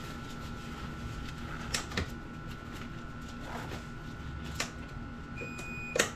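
Scattered clicks and knocks of a hand tool and hard plastic trim as fasteners are worked loose on a BMW's engine-bay cowl panel, with a short high squeak just before the loudest knock near the end. A steady hum runs underneath.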